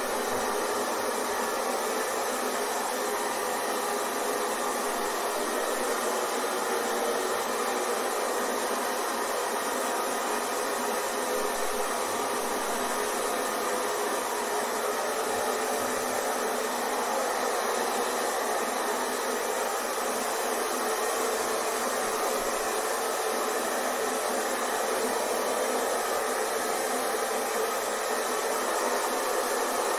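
Hair dryer running steadily on one setting, a constant whooshing rush of air with a faint motor hum.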